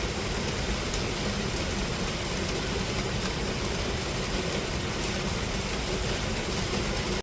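Steady heavy rain falling on a metal roof, an even hiss and patter with no letup.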